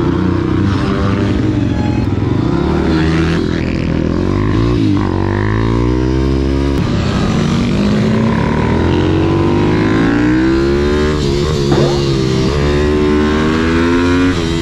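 YCF SM 190 Daytona pit bike's single-cylinder four-stroke engine revving hard and shifting up and down through the gears. Its pitch climbs and falls repeatedly, with sharp drops at each shift, about five, eleven and fourteen seconds in.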